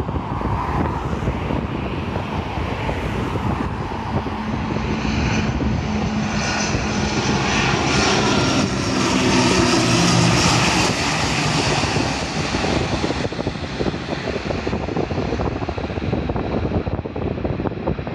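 High-wing twin-turboprop airliner on final approach passing low overhead: its propeller and engine drone grows louder to a peak about ten seconds in, then fades away.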